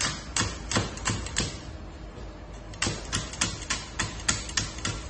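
Chinese cleaver slicing green bird's-eye chilies into rings on a thick wooden chopping block: a steady run of knife knocks on the wood, about three a second. The knocks pause for about a second around the middle, then resume a little faster.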